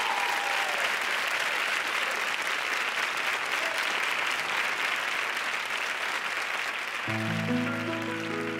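A studio audience is applauding. About seven seconds in, a grand piano comes in with sustained opening chords, and the applause carries on underneath.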